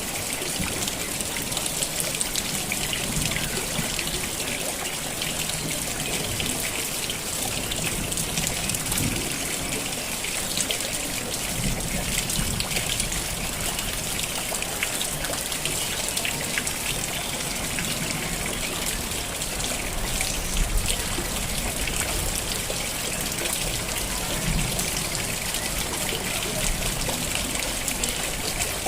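Rain falling steadily, with dense patter of drops and water trickling and running.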